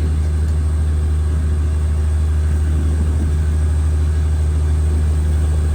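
Fishing boat's engine running steadily, a constant low drone that does not change.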